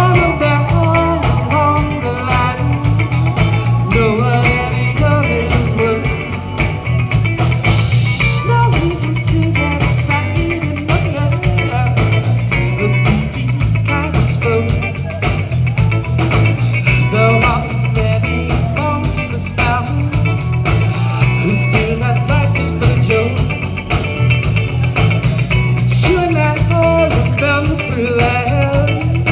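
Live band playing: electric bass, keyboard, drum kit and electric guitar together, with a strong, steady bass line under shifting keyboard and guitar lines.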